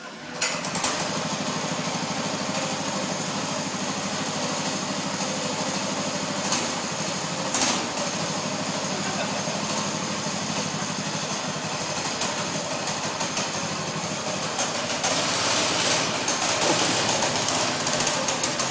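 Small engine of a bar stool racer kart running steadily. In the last few seconds it runs higher and more unevenly as the kart drives off across the floor.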